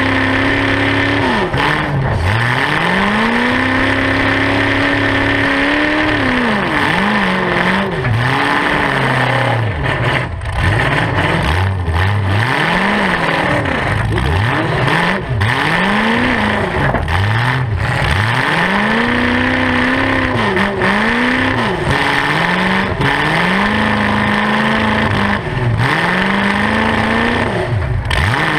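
Demolition derby car's engine, breathing through short open exhaust stacks, revved up and down over and over as the car accelerates, backs off and changes direction; the pitch climbs and falls every couple of seconds.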